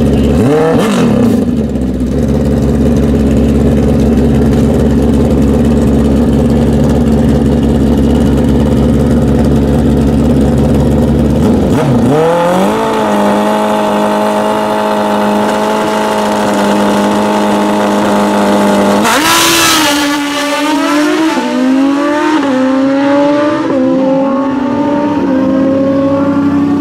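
Two inline-four sport-bike drag bikes running loud at the start line: a quick rev at first, then a steady drone, then engines held at a steady pitch. About two-thirds of the way in they launch, and the pitch climbs and drops several times as the bikes shift up through the gears and pull away down the strip.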